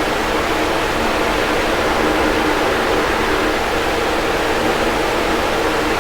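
Box fan running steadily: an even rush of air with a faint motor hum underneath.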